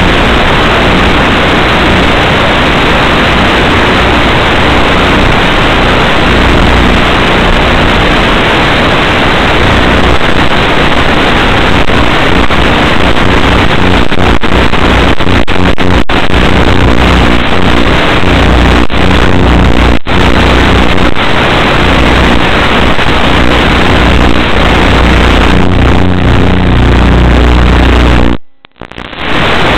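Loud, steady hiss with a low hum carried over an analog 5.8 GHz FPV video link's audio channel. It cuts out sharply for about a second near the end, as the radio link drops.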